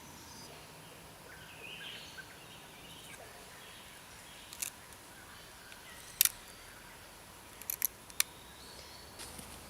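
A handful of sharp clicks or knocks, the loudest about halfway through, followed by a quick pair and a single click near the end, over a faint outdoor background with a few brief bird chirps.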